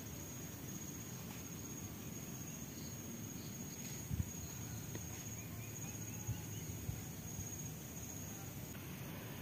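Faint, steady high-pitched insect buzz that stops shortly before the end, over a low rumble. A single soft knock comes about four seconds in, and a short run of faint chirps comes in the middle.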